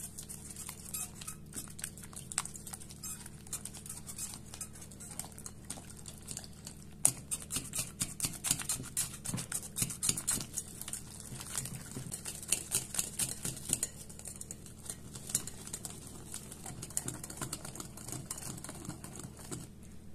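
Metal spiral whisk beating mashed potato and eggs in a glass bowl: rapid, irregular clicking and tapping of wire against glass with a wet mixing sound. It is busiest in the middle, with a sharp knock about seven seconds in.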